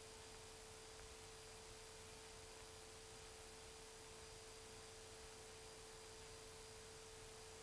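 Near silence: faint hiss of an old VHS tape transfer with a faint steady tone held at one pitch.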